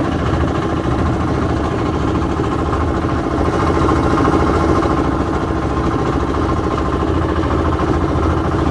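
Wooden river boat's engine running steadily under way, a continuous low chugging drone with a fast, even beat.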